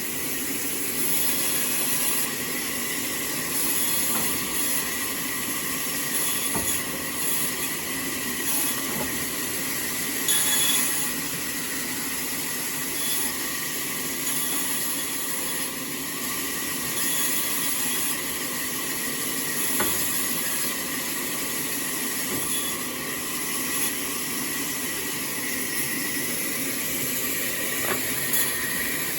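Sawmill machinery running steadily, with a constant high whine over a rushing mechanical noise and a few brief louder moments.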